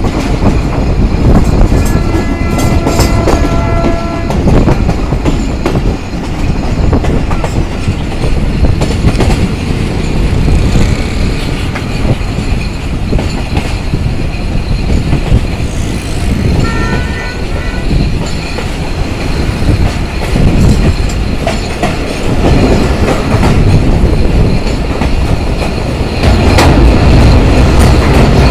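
Pakistan Railways passenger train running at speed, heard from an open coach window: a steady rumble with the clickety-clack of wheels over rail joints. A horn blows twice, once for about two seconds early on and again in short broken blasts midway, and the running gets louder in the last two seconds as the train goes onto the bridge over the Indus.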